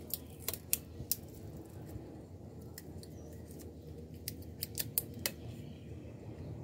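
Sharp clicks and light taps of a glass tumbler and a roll of adhesive tape handled together, in two short clusters: one in the first second and another around four to five seconds in.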